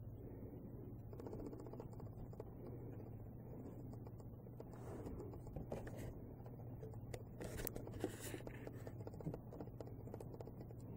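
Faint scratching and rustling of small claws and paws scrabbling over a quilted bedspread and pillows, with a cluster of sharper scrapes and clicks around the middle, over a steady low hum.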